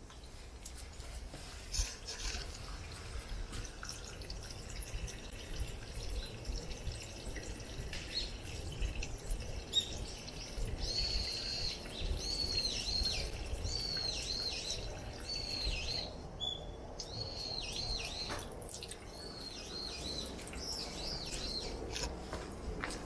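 Water trickling steadily from the spout of a bronze komainu statue into a shrine's stone purification basin. From about ten seconds in, a bird calls over it again and again in short high chirps.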